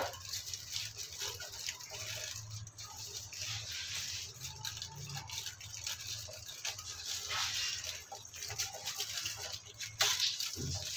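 Aluminium foil crinkling and rustling as it is peeled off a plastic ice-lolly mould and crumpled by hand, in irregular crackles, with a knock about ten seconds in.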